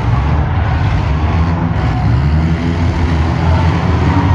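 Many demolition derby cars' engines running and revving together as the heat gets under way, a dense, steady low rumble.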